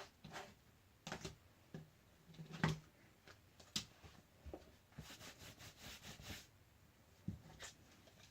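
Faint, scattered clicks and taps of small phone parts being handled during reassembly, with a soft rustling scrape about five seconds in.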